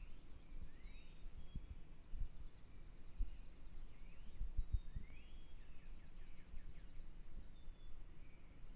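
Birds singing in the early morning. One bird repeats a high, rapid trill every two to three seconds, and another gives short rising chirps in between, over low rumbling bumps.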